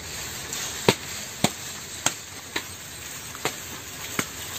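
Sharp chopping strokes of a blade cutting into a date palm's crown where the fruit bunches hang: six separate strokes at uneven intervals, the first the loudest.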